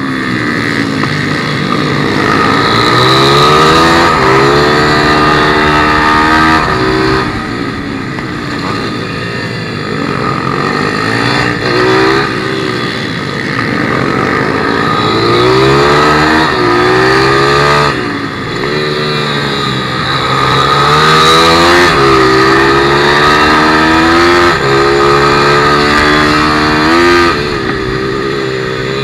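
Onboard sound of a 160cc pit bike's single-cylinder four-stroke engine at racing speed. The revs climb through the gears, drop away when the rider backs off for a corner, then climb again, several times over.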